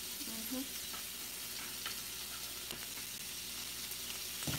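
Squash and onion sizzling as they fry in a stainless steel skillet: a steady hiss, with a soft knock near the end.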